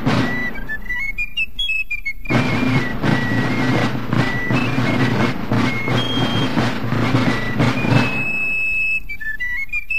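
Fife-and-drum music: a high fife melody plays alone for about two seconds, then rapid drumming on a rope-tension field drum joins it. Near the end the drumming stops, leaving a held fife note and then the melody alone.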